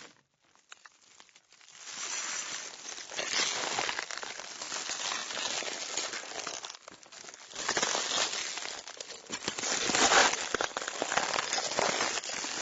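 Broken car windscreen glass debris crunching and crackling: a dense run of small crackles that starts about two seconds in after a short near-silent gap, dips briefly near the middle and is loudest about ten seconds in.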